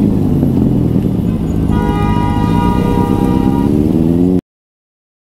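Motorcycle engine running under the rider, its revs dropping and then climbing again, with a vehicle horn sounding steadily for about two seconds from about two seconds in. All sound cuts off suddenly near the end.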